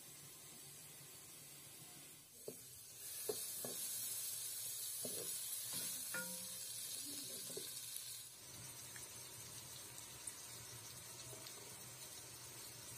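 A couple of sharp taps as an egg is cracked with a knife over the pot, then eggs and onion sizzling loudly in hot oil, stirred with a wooden spoon that clicks against the pot. After about eight seconds the sizzle settles to a softer hiss.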